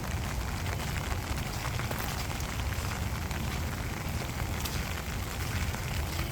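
Steady rain falling, a dense patter of drops with a low rumble underneath.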